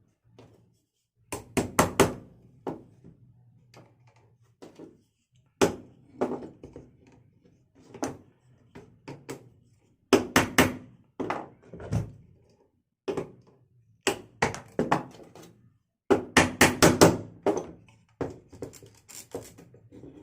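Knocks and taps on wooden bird-cage parts, some single and some in quick runs of four or five blows, with a short ring after each.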